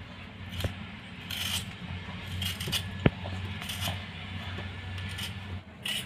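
Metal vegetable peeler scraping the skin off a raw potato in short, uneven strokes, with a sharp click about three seconds in.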